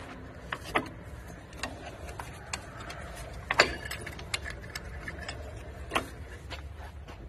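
Irregular sharp metallic clicks and clinks as a screwdriver and fingers work a rear drum brake shoe's hold-down pin and spring loose on a Nissan Sentra. The loudest click comes about three and a half seconds in. A low steady hum runs underneath.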